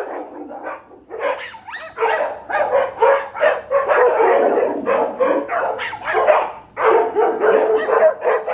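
Recorded dog barking played from an Amazon Echo Dot smart speaker: a long run of rapid barks, one after another, with short pauses.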